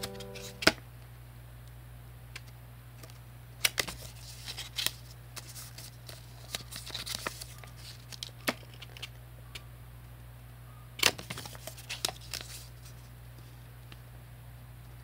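Origami-paper accordion file being flipped open and handled: dry paper rustles and crisp clicks in scattered clusters, the sharpest about four seconds in and again near eleven seconds, over a steady low hum.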